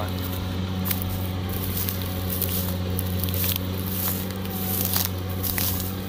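Kubota DC70 combine harvester running at a steady working pace while cutting rice, a constant low engine hum with irregular crackling over it.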